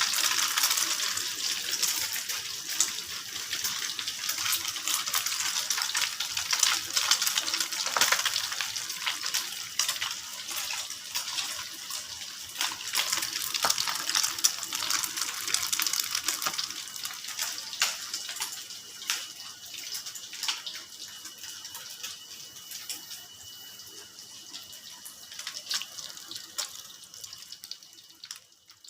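Egg frying in hot oil in a pan: a steady sizzle with frequent crackles and pops that gradually dies down.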